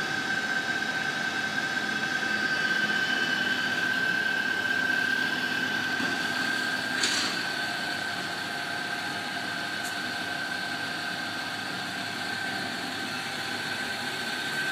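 Hardinge HLVH toolroom lathe running steadily, its motor and spindle drive giving a constant high whine over a hum. There is a brief click about seven seconds in.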